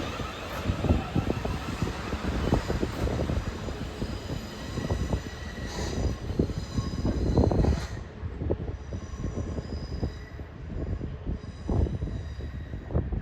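Class 450 Desiro electric multiple unit running on the rails as it pulls away, with wind buffeting the microphone in low gusts. Faint steady high tones come in about two-thirds of the way through.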